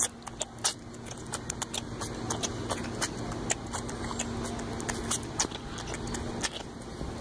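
Tiger cub suckling from a milk bottle: a run of irregular wet smacking clicks over a steady low hum.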